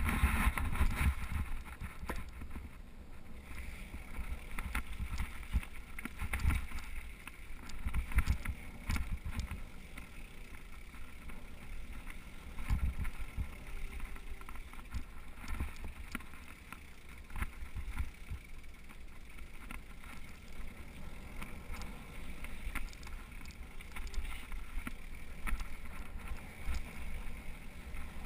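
Mountain bike riding down a dirt and gravel forest trail: tyres rolling over the ground with frequent rattles and knocks from the bike over bumps, and wind rumbling on the microphone.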